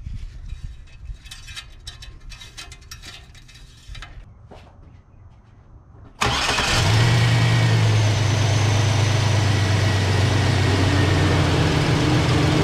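Light rustling and clicks, then, about halfway through, a 2004 Chevy Silverado's engine starts and settles into a loud, steady idle. It is the first start after an oil change with a pre-filled oil filter, and the engine sounds healthy right away.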